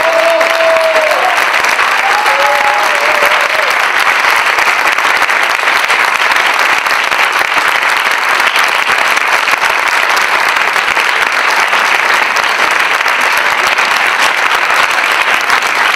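Theatre audience applauding steadily and heavily, with a couple of short voices calling out from the crowd in the first few seconds.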